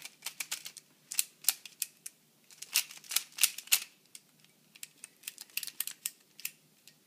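A Moyu Pyraminx being turned by hand: quick, irregular plastic clicks in bursts as the pieces snap through turns.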